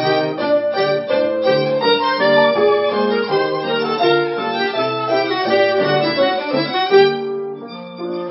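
Violin, clarinet and grand piano playing a Jewish dance tune together. Near the end the sound thins and drops in level.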